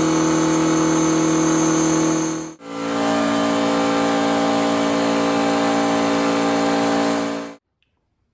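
1978 Ferrari 308 GTS's carburetted 2.9-litre V8 running at a steady speed, in two joined stretches with a brief break about two and a half seconds in, then cutting off suddenly near the end.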